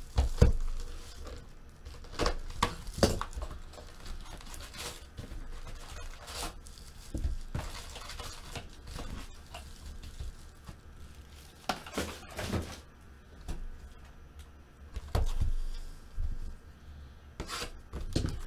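Foil-wrapped packs of 2014 Bowman Chrome football cards being taken out of their cardboard hobby box and laid on a table: on-and-off crinkling rustles with light knocks.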